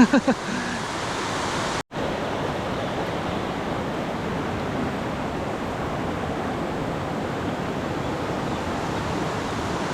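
Swollen mountain stream running high after heavy rain: a steady rush of water, broken by a brief cut about two seconds in.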